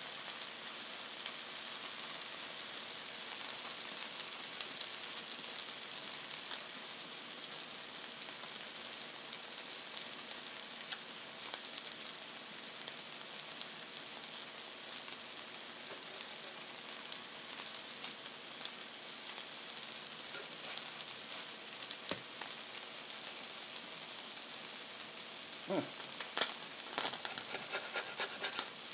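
Chicken birria tacos frying on a flattop griddle: a steady sizzle with light crackling as the tortillas crisp. Near the end, a few brief clicks and scrapes as a spatula works the tacos.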